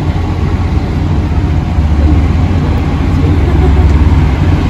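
Steady low rumble of a motor vehicle running, heard from on board.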